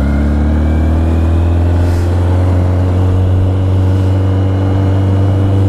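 Motorcycle engine running at a steady speed, a loud, even hum.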